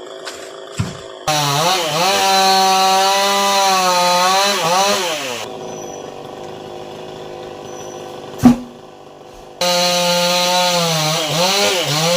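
Two-stroke chainsaw running at full throttle and cutting into a coconut palm, its pitch dipping as the chain bogs in the wood. It drops back to idle for a few seconds, then cuts again near the end. One sharp, loud knock comes about eight and a half seconds in.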